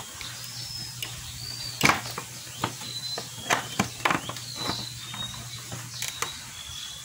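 Scattered clicks and knocks of hands fitting a rubber fuel hose onto a GY6 scooter's automatic vacuum fuel cock, the loudest about two seconds in and a quick cluster a little after, over a low steady hum, with short high chirps in the background.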